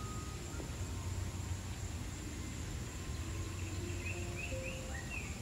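Outdoor jungle ambience: a steady low hum under a faint high insect drone, with a few short bird chirps about four seconds in.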